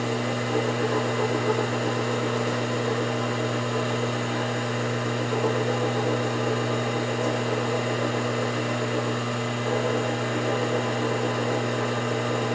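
Milling machine spindle running steadily, spinning a slitting saw that is not yet cutting, with a steady motor hum.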